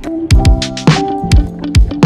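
Background music with a steady beat: deep drum hits about twice a second, sharp high percussion and held melodic notes.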